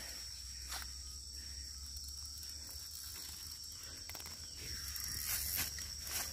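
Steady high-pitched insect chorus trilling, with a low rumble underneath and a brief rustle of leaves and handling about five seconds in.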